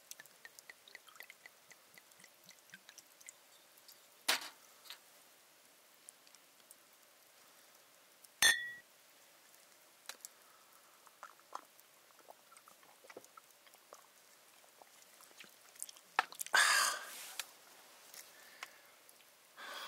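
Scattered small clicks and taps. A sharp click with a short ring comes about eight seconds in, and a brief rustling burst comes about seventeen seconds in.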